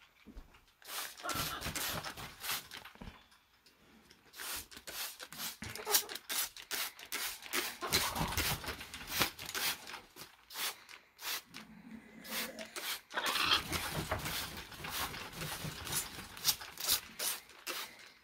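A soaked pet parrot fluttering and shaking water off its feathers: an irregular run of rustling, spattering flutters with quick clicks, in a short burst near the start and then a longer stretch.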